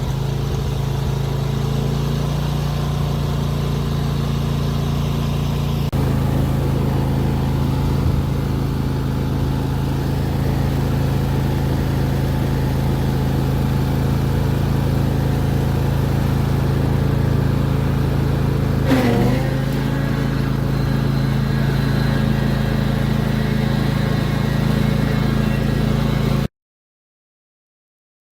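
Riding lawn mower engine running steadily at speed, getting a little louder about six seconds in, with a brief wavering squeal about two-thirds of the way through. The sound cuts off abruptly near the end.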